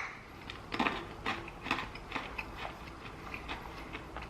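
Crinkles and small irregular clicks of a plastic wrapper being opened on an individually wrapped hard candy, busiest in the first three seconds and then thinning out.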